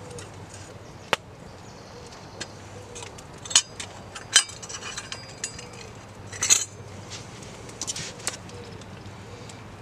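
A metal fork clinking against a metal camp mug and tin plate while boiled nettles are lifted out of their cooking water: a scattering of short, light metallic clinks and taps, the loudest three about three and a half, four and a half and six and a half seconds in.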